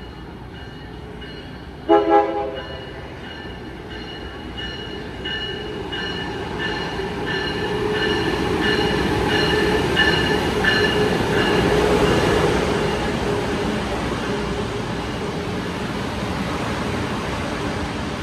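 A passing train's horn sounds two short toots about two seconds in, while the locomotive bell rings about every two-thirds of a second. The train's rumble and wheel noise build, are loudest around the middle, then ease off.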